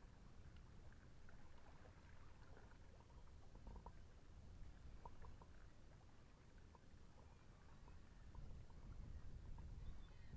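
Faint low rumble of wind on the microphone, with scattered soft pops and ticks from the wet mudflat, small air bubbles bursting in the mud and water as the tide comes in.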